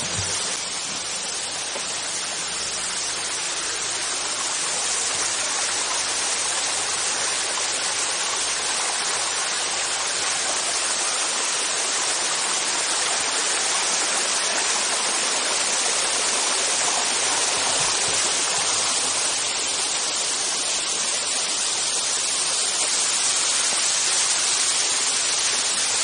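Small waterfall and rocky stream rushing steadily over stones.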